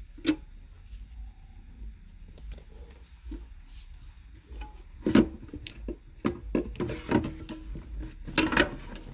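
Handling noises of a 2002 Ford Mustang's engine computer (PCM) and its wiring connector: a sharp click near the start, then scattered knocks, clicks and scraping of metal and plastic as the module is worked out of its bracket, busiest in the second half.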